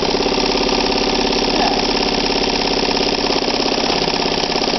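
Calanda sewing machine, made in Japan for Pfaff, running flat out on a long straight stitch: a loud, steady whir of rapid, even needle strokes.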